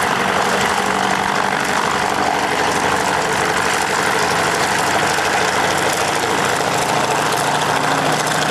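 Junkers Ju 52's three radial engines running steadily at low power as it taxis.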